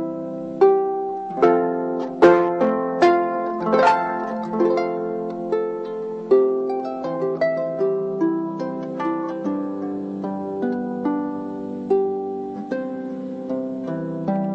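Solo harp playing a slow melody of plucked notes that ring and fade over a held low note, with a few louder chord strokes in the first four seconds.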